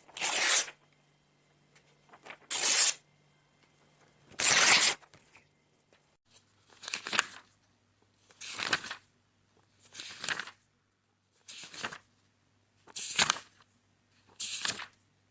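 Book pages being torn: about nine short papery rips, one every second and a half to two seconds. The first three are louder and brighter than the rest.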